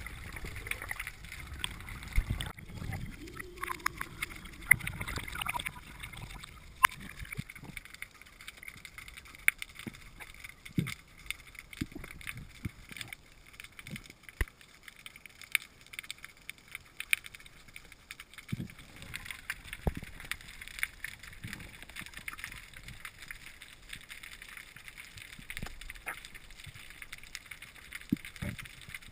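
Underwater water noise picked up through a diving camera: a low rushing and gurgling of moving water for the first few seconds, then quieter water with many scattered sharp clicks and crackles.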